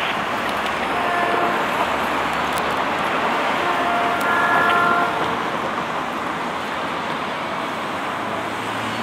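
Freight cars rolling along the rails, a steady rumble with a few brief high squeals, about a second in and again around four to five seconds in.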